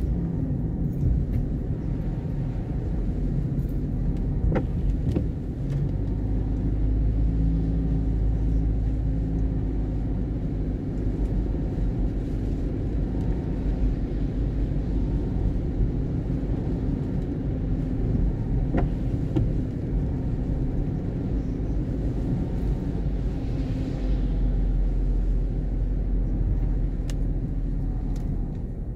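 Car cabin noise while driving on wet roads: a steady low rumble of engine and tyres heard from inside the car.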